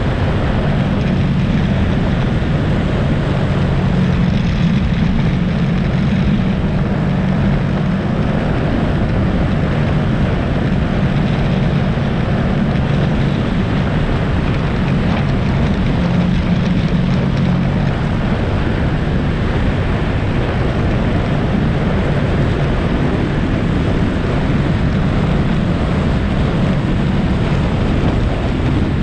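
ATV engine running steadily at riding speed, a continuous drone that eases off for a few seconds about two-thirds through, with wind buffeting the microphone.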